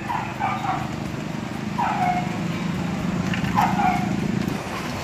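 A dog barking three times, each bark short and falling in pitch, about a second and a half apart, over a steady low machine hum that stops near the end.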